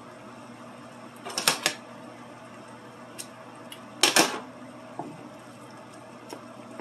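Wooden spoon knocking and scraping against a square copper-coloured skillet while pork chops are flipped among ramen noodles: two short bursts of clatter, about one and a half and four seconds in, with a few lighter taps between and after.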